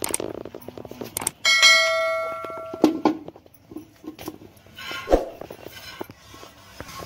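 A bright metallic ring, like a struck bell, that starts suddenly about a second and a half in and fades over about a second and a half. It comes just after a couple of clicks, and a few short knocks follow.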